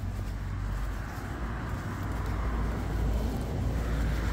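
Road traffic on the adjacent street: a steady low rumble with tyre noise that swells louder in the second half.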